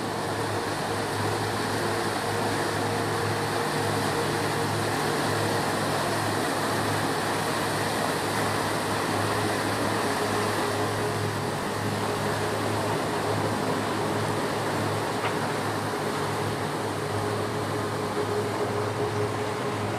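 Steady hum of running machinery: a low drone with a few steady tones and a higher tone that grows stronger about halfway through.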